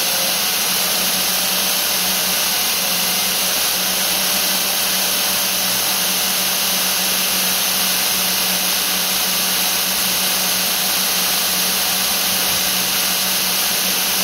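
Belt grinder running steadily at about 4,100 RPM: an even hiss of the belt over a constant low motor hum.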